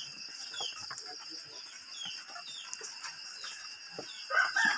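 A rooster starts crowing about four seconds in, over a steady high insect chorus and a short falling chirp repeated about twice a second.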